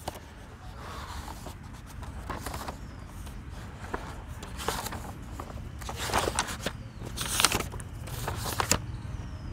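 Pages of a thick paperback textbook being flipped through by hand: a string of short papery rustles and flicks, busier in the second half.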